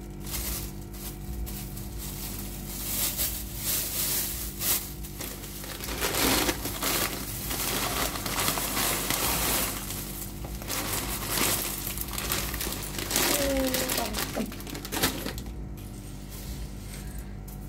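Plastic bags crinkling and rustling as cornflakes are poured from their packet into a clear plastic bag, with the dry rattle of the flakes.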